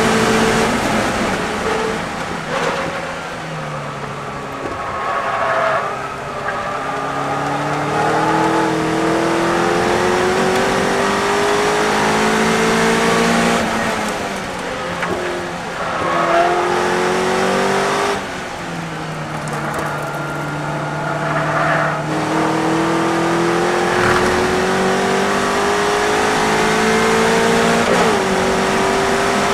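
Westfield racing car's engine heard from inside the open cockpit under racing load. The revs fall as the car brakes near the start, then climb again and again through the gears, dipping briefly at each upshift, over steady wind and road rush.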